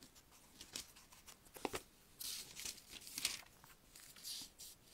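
Thin Bible pages being turned by hand: faint paper rustles and crinkles. A couple of soft ticks come first, then several quick page-flip swishes from about two seconds in.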